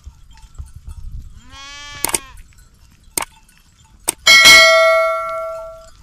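A sheep in the grazing flock gives one bleat, then a few metallic clinks, and about four seconds in a livestock bell clangs loudly close by and rings on, fading over a second or so.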